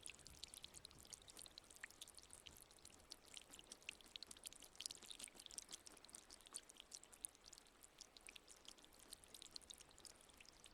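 Soft trickle of water from a small fountain: a fast, irregular patter of droplets splashing.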